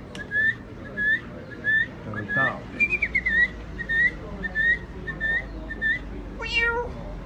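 A man whistling a string of short bird-like chirps by mouth, about one every two-thirds of a second, with a warbling, higher one midway. About six and a half seconds in comes a short meow-like call, imitating a cat.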